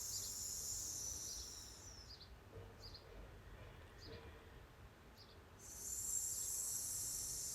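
A long whispered 'sss' breathed out on the exhale: the Six Healing Sounds' sound for the lungs. It fades out about two seconds in and, after a quiet inhale, starts again about six seconds in.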